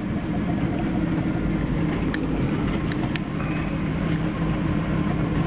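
Car engine and road noise heard from inside the cabin while driving slowly: a steady low hum, with a few light clicks about two to three seconds in.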